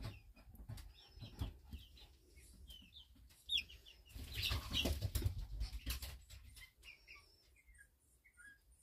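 Silkie chick peeping over and over in short chirps, several falling in pitch, while being washed. Water splashes and sloshes in a small plastic tub about four to six seconds in, the loudest part.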